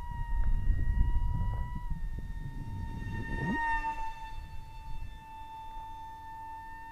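Radiolink SU27 RC model jet's motor whining steadily in flight as one high tone with overtones. The pitch drops slightly about two seconds in and the whine swells as the plane passes close about halfway through. Wind rumbles on the microphone, heavier in the first half.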